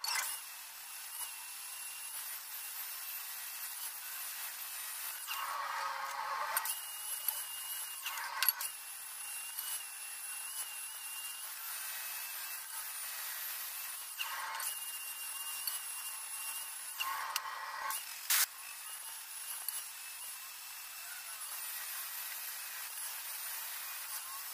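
Angle grinder with a flap disc grinding the welded seams of sheet steel: a steady high whine over grinding noise, with a few sharp knocks from the work being handled.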